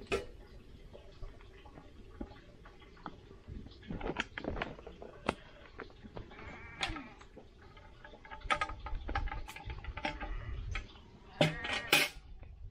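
Sheep bleating a few times, with scattered knocks and clatters between the calls.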